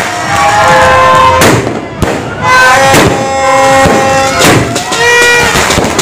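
Multi-shot fireworks cake firing, with several sharp bangs of shells bursting in the air. Music with held pitched notes plays under them.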